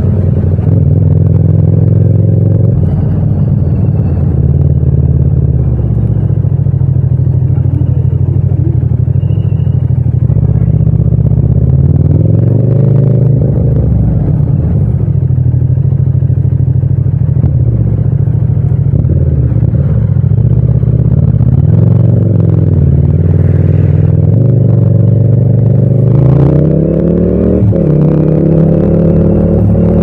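Parallel-twin motorcycle engine heard from the rider's seat, rising and falling in revs as the throttle is rolled on and off. Near the end it pulls up through the revs, with a brief dip for a gear change.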